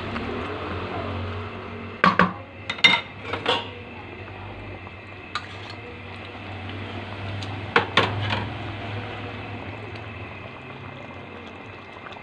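Cooking utensil knocking against a metal wok of simmering stew: a cluster of sharp knocks about two to three and a half seconds in, a single knock in the middle and another cluster near eight seconds, over a steady low hum.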